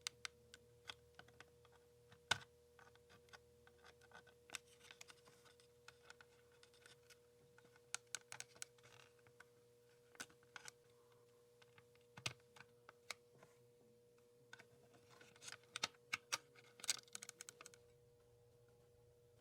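Small irregular clicks and taps of tools and small plastic and metal parts being handled while a Sony Walkman WM-EX170 cassette player is taken apart for repair. The clicks cluster about half-way through and again near the end, over a faint steady tone.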